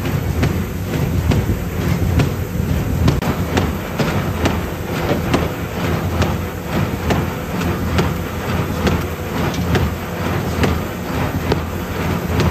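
Corrugated cardboard box-making machine running with a steady low rumble and a fast, uneven clatter as the flat corrugated sheets are fed through its rollers.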